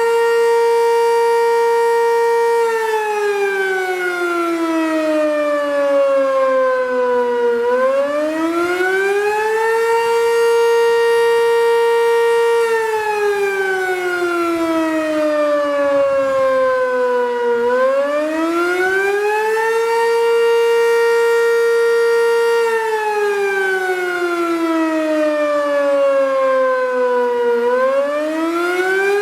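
Sentry 10V2T dual-tone outdoor warning siren sounding the rising and falling attack signal. The chord holds at its top pitch for a couple of seconds, slides slowly down over about five seconds, then sweeps quickly back up, about every ten seconds, three times over.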